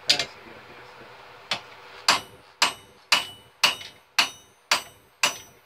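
Hand hammer striking glowing hot steel on an anvil while forging a punch. Two separate blows, then a steady run of about two blows a second, each with a short metallic ring.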